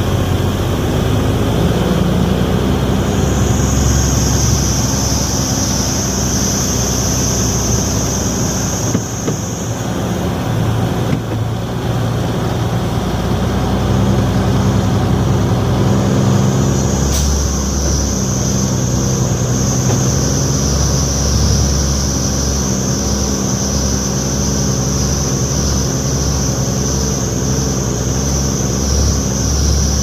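Truck engine running while driving, with road noise. A high-pitched whine comes in a few seconds in, drops out for several seconds in the middle, and returns for the rest.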